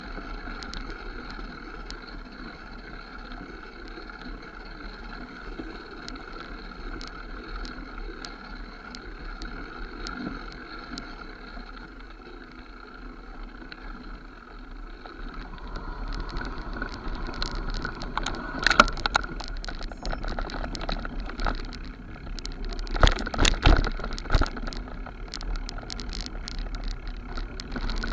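Mountain bike riding down a dirt forest trail: steady rolling noise of tyres on the ground with light rattling. About halfway through it turns rougher and louder, with sharp clunks and rattles as the bike goes over bumps and roots.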